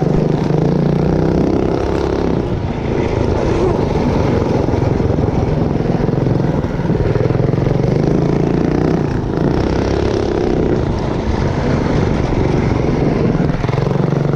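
Motovox minibike's Predator 212 single-cylinder four-stroke engine running hard as the bike is ridden, its revs rising and falling with the throttle.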